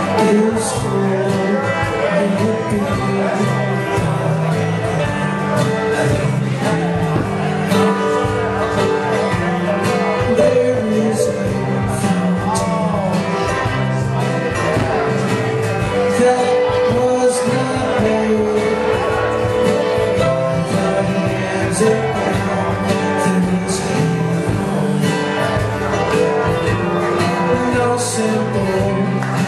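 Live acoustic string band playing in a country-bluegrass style, with acoustic guitars, mandolin, bowed fiddle, bass guitar and drums.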